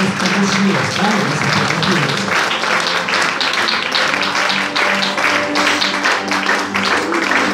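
Rhythmic background music with held notes plays over applause, which is thickest in the first couple of seconds.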